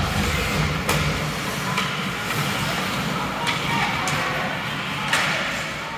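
Youth ice hockey play in an arena: several sharp knocks of sticks and puck, one every second or so, over a steady din of spectators' voices.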